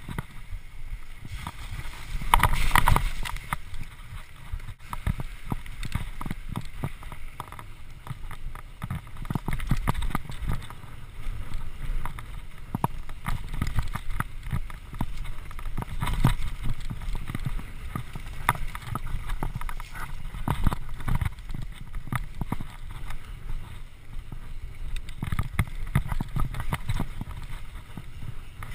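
Mountain bike riding fast over a dirt trail: a steady low rumble from the tyres and wind, with frequent small rattles and knocks as the bike goes over bumps.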